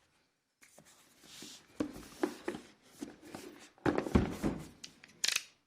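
A cardboard keyboard box being opened and handled by hand: irregular scraping, rustling and knocks, with the loudest thumps about four seconds in and a short sharp rustle near the end.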